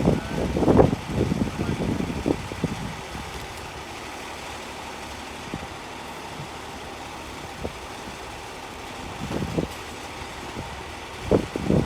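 An engine idling steadily with a low hum. Louder, uneven sounds rise over it in the first three seconds and again near the end.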